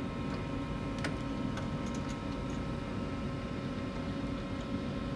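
Steady low background hum of a workshop, with a few faint, light ticks and clicks scattered through it.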